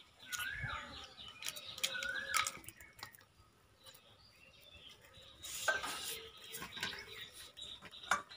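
Hands kneading ripe tamarind in water in a small steel bowl: wet squishing with light clicks and knocks against the steel. A bird chirps twice in the first few seconds.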